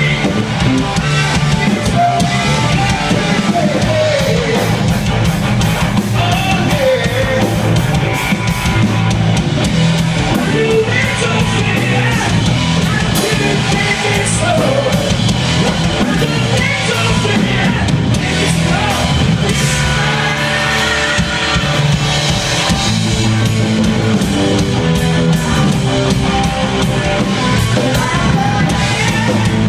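Rock band playing live: distorted electric guitars, electric bass and a drum kit, with a lead singer on vocals.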